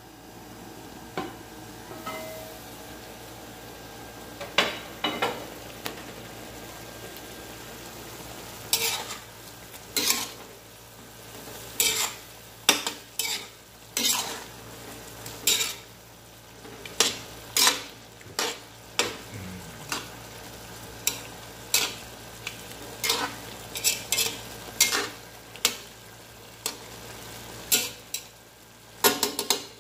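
A metal spatula stirs chicken pieces simmering in sauce in an aluminium wok: irregular scrapes and clanks of metal on the pan over a steady simmering sizzle. The clanks are sparse at first and come about once or twice a second from roughly a third of the way in.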